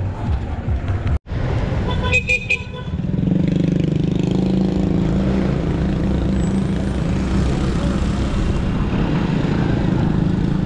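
Street traffic: a vehicle horn toots briefly in a few quick pulses about two seconds in, then a steady engine drone takes over.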